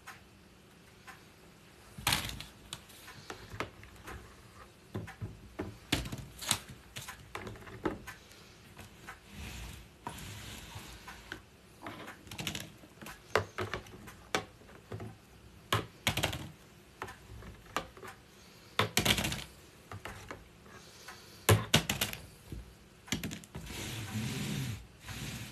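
Scattered light clicks, knocks and clatter of kitchen items being handled, starting about two seconds in, with a few louder clusters of knocks.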